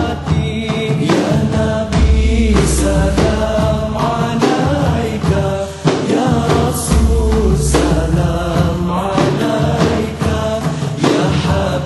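Islamic devotional song: voices singing over music with a low bass line.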